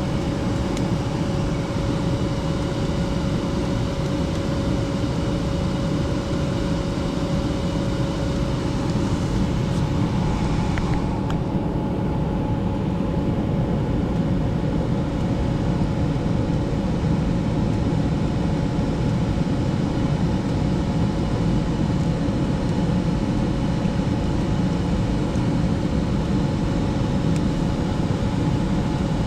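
Gas furnace running: steady rushing air from the blower with a constant mechanical hum. The higher hissing part of the sound drops away about eleven seconds in while the low rush and hum carry on.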